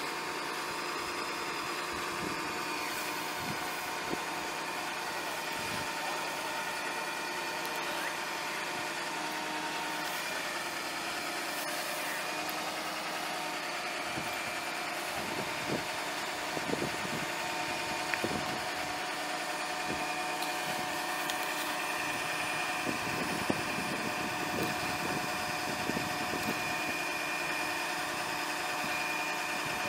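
Ford 6.0L V8 turbo diesel engine idling steadily, with a steady thin whine over it. A few light knocks come in the second half.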